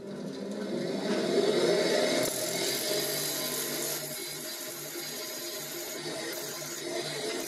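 Bench grinder running with a steady hum while its wheel grinds a steel thread-cutting tool bit held in a boring bar. A grinding hiss grows stronger about two seconds in as metal is taken off one side of the bit's profile.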